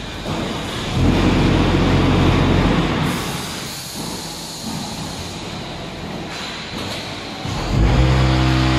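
Concrete block production line machinery running: a continuous mechanical rumble and clatter. A louder, steady low hum comes in about a second in and fades after a couple of seconds, and another steady hum starts near the end.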